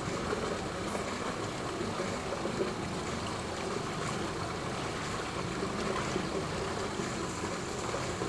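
Steady rushing and trickling of a swimming pool's circulating water, an even noise with nothing standing out.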